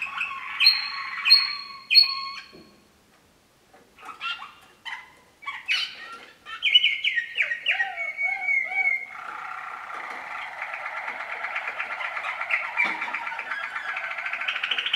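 Waterslager canaries singing: phrased, bubbling song tours that stop for about a second around three seconds in, resume as a run of separate notes, then from about nine seconds on turn into a long, rapid rolling trill.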